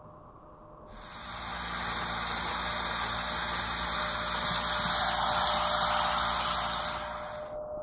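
HO scale Auscision Tangara model train running past on its track: a steady rushing hiss of wheels and drive that starts suddenly about a second in, grows louder as the train passes closest, and cuts off suddenly near the end.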